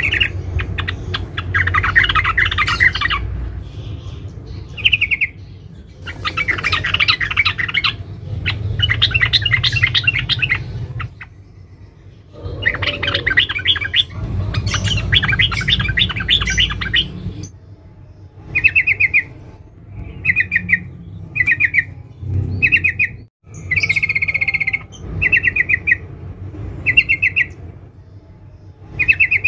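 Female yellow-vented bulbul (trucukan) chattering in fast, dense trills: its call to a male. Long runs of chatter fill the first half, and from about two-thirds of the way in it gives short bursts about a second apart.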